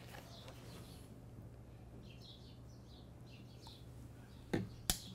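Quiet room tone with a steady low hum and faint bird chirps in the background, then two sharp knocks about a second apart near the end.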